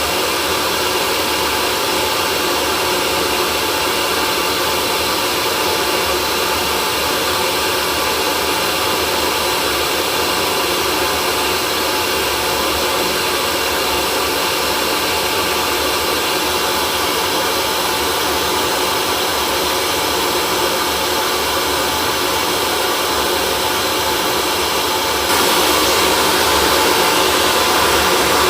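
Hair dryer running steadily: a continuous rushing blower noise with a faint motor hum, turning slightly louder and brighter near the end.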